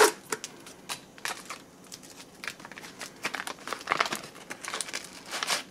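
Foil-laminate MRE crackers pouch crinkling and rustling as it is handled open, in irregular bursts, with a sharp tap at the very start.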